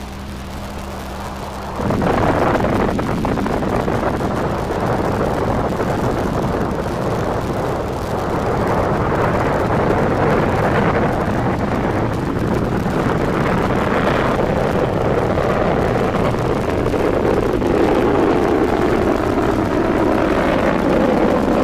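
Rocket engines roaring at liftoff: after a low hum, the engine noise comes in suddenly about two seconds in as a loud, dense roar that holds steady as the rocket climbs away.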